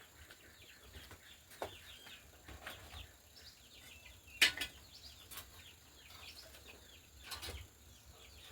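Small birds chirping over and over, with a few sharp knocks, the loudest about four and a half seconds in.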